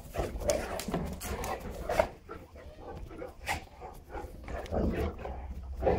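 Several Neapolitan mastiffs barking in short, irregular bursts as they scuffle with one another.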